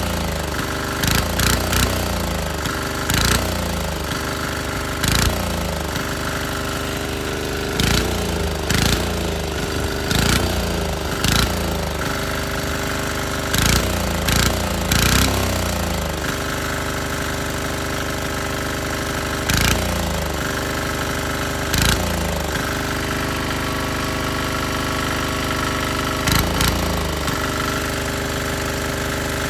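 Small single-cylinder air-cooled diesel engine running, its throttle blipped again and again: short loud revs that fall back each time, about every second or two in the first half, then only a few more, with steady running between.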